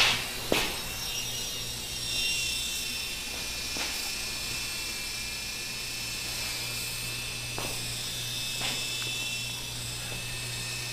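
Blade mCX micro coaxial RC helicopter flying, its small electric motors and rotors giving a steady high whine in several pitches over a low hum, still in full function though dripping wet. A few sharp clicks break in, the loudest at the very start and about half a second later.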